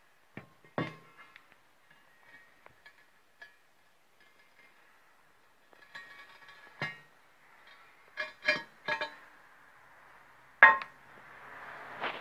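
Heavy welded steel plates clinking and knocking as the shaper's box-shaped steel table is handled and set against the machine's steel frame: scattered sharp metallic knocks with short ringing, a quick run of three in the middle and the loudest a little before the end.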